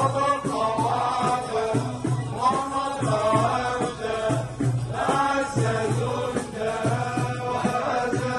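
Men of a Sufi procession chanting together in a group, over a steady repeating low beat.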